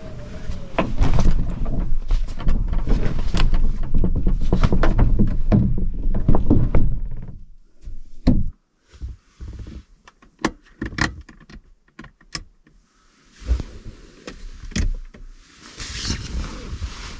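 Pop-up roof of a kei-car camper being pulled down and closed by hand: canvas rustling and flapping with knocks and clunks for the first several seconds, then a few scattered clicks and knocks, and near the end soft rustling of a sleeping bag.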